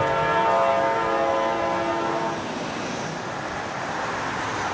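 Locomotive air horn sounding a long blast of several notes at once, ending about two and a half seconds in. A steady rushing noise follows.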